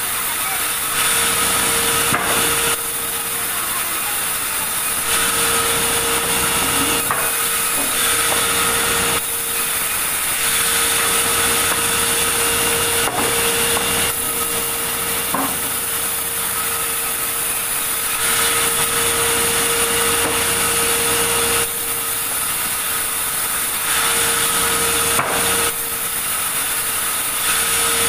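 A sawmill saw cutting through a large log: a continuous rasping cut over a steady machine hum, growing louder and softer in stretches of a few seconds.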